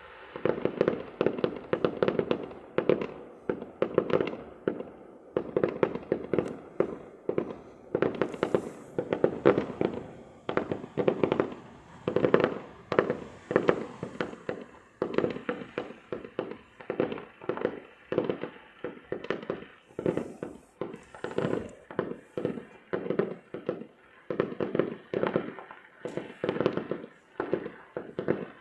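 Fireworks going off: rapid crackling and popping in dense volleys that swell and fade about once a second, almost without a break.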